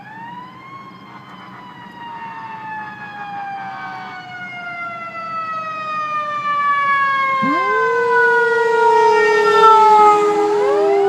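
Fire truck siren wailing, its pitch falling slowly and growing louder as it approaches, then starting to rise again near the end. About seven seconds in, a Labrador retriever breaks into a long, held howl along with it.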